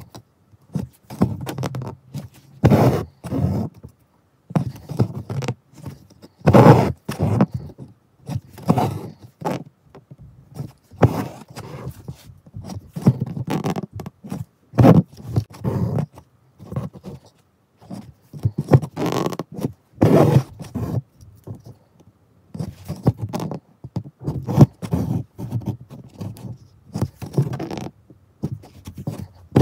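Embroidery thread being pulled through fabric while chain stitching, a rasping scrape with each pull. The pulls come in uneven strokes about every second or two.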